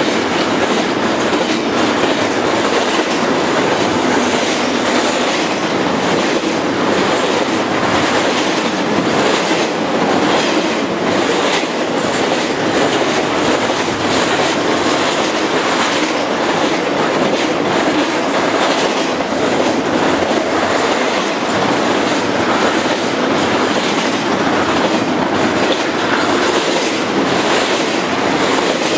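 Double-stack container freight train's well cars rolling past close by: a loud, steady rumble and rattle of steel wheels on the rails, with repeated clicks from the wheels.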